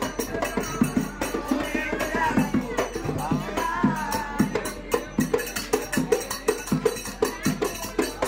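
Devotional folk singing: a man sings into a microphone over a barrel drum beaten in a steady rhythm, with jingling percussion and hand-claps.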